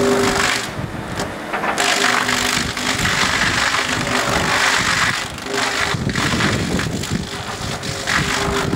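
Butt end reducer at work, its cutter shaft mounted below the log milling down the root flare: a dense, steady chipping and grinding noise over a low machine hum that comes and goes.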